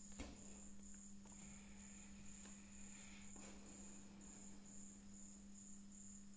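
A cricket chirping faintly, a high note pulsing on and off about twice a second, over a low steady hum.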